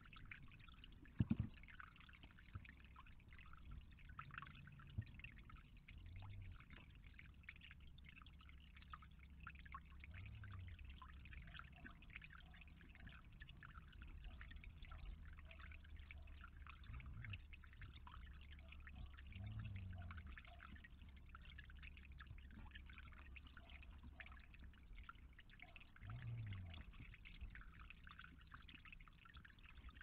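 Faint, steady trickle of water running from a small stepped cascade into a pond, with one sharp knock about a second in.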